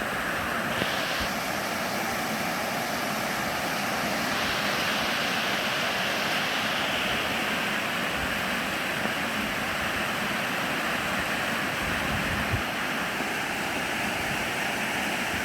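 Swollen, fast-flowing river rushing steadily after a hurricane's rains.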